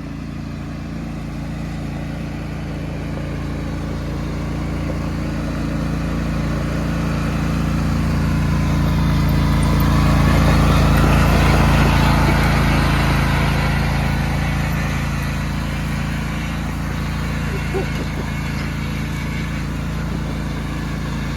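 Small engine of an old deckless riding lawnmower running steadily as it drives up and past, getting louder to a peak about halfway through, then fading away.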